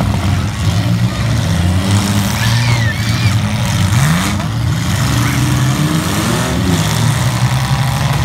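Several modified compact demolition derby cars' engines running and revving, their pitch rising and falling as they accelerate and back off, loud and continuous.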